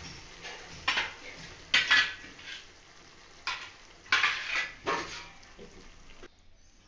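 Metal spatula scraping and knocking against a metal kadai as it stirs a thick fish curry, several separate strokes, over a faint sizzle from the pan just taken off the flame. The sound cuts off abruptly near the end.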